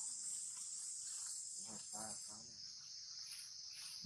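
Steady high-pitched insect chorus, with a short voice-like call about two seconds in.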